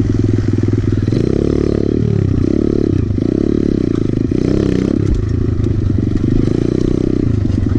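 Kawasaki KLX110 pit bike's small single-cylinder four-stroke engine, heard close up from on the bike while it is ridden over dirt, its revs rising and falling several times.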